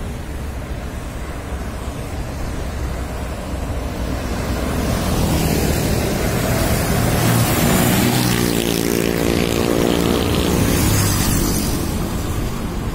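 Road traffic passing with wind on the microphone: a Volvo FM12 recovery truck's diesel engine and a motorcycle draw near, their engine note swelling about halfway through over steady tyre noise.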